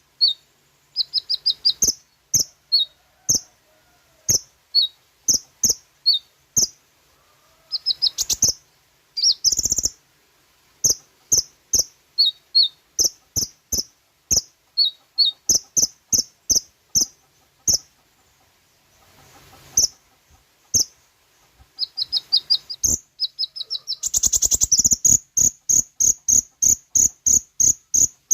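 Kolibri ninja sunbird singing: a long string of short, high, sharp chirps and brief trilled phrases. Near the end it breaks into a fast, even run of about four notes a second.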